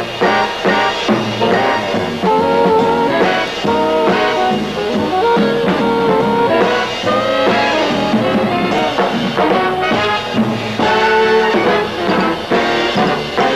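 Instrumental big-band jazz: brass and a drum kit playing a dance break, with no singing.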